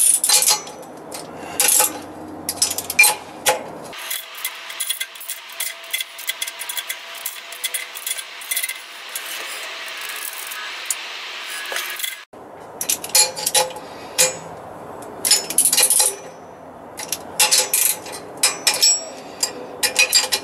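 A hand ratchet with a socket extension clicks in short runs as it spins nuts down onto the air compressor's cylinder-head studs, among light metal clinks of the tools. A denser, steadier run of clicking fills the middle stretch.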